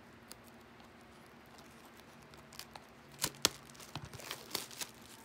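Fingers picking at the sealed edge of a cardboard trading-card hobby box with scraps of plastic wrap still on it: faint, scattered clicks and crinkles. They begin about halfway through, after a quiet start.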